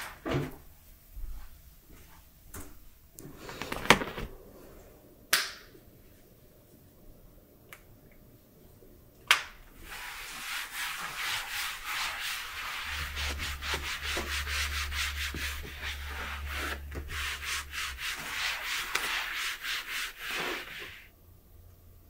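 A cloth is scrubbed briskly back and forth over a leather armchair, a dry rubbing sound in quick repeated strokes that begins about halfway in and stops shortly before the end. A few scattered knocks and clicks come before it.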